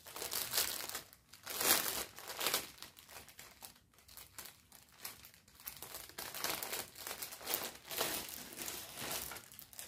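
Clear plastic packaging bag of a cross-stitch kit crinkling in irregular bursts as hands handle it and work the contents out, loudest about two seconds in.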